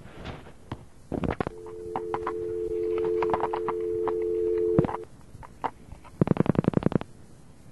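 Telephone line: a few clicks, then a dial tone of two steady tones held for about three and a half seconds and cut off by a click. Near the end comes a rapid train of buzzing pulses, the slowed-down radio signal of the Pioneer 10 spacecraft played down the phone line.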